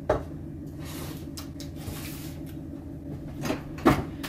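A cardboard box being handled and shifted across a tabletop: a sharp knock just after the start, scraping and rustling in the middle, and two thumps near the end, the second one the loudest.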